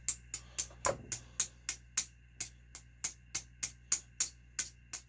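Light metal-on-metal tapping at an even pace, about three sharp taps a second, driving the wrist pin out of a nitro engine's piston.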